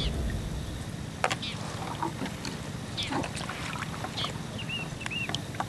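Water sloshing and splashing in short, irregular strokes as an angler floating in an inner tube paddles across the reservoir, over a steady low wind rumble on the microphone.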